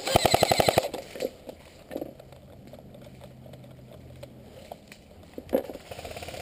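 Airsoft M4-style electric rifle firing a full-auto burst: a fast, even string of shots that stops about a second in. A few scattered single clicks follow, and a sharp click comes about five and a half seconds in.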